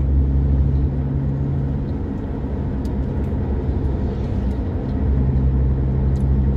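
Car driving, heard from inside the cabin: a steady low engine and road drone that dips a little for a few seconds in the middle.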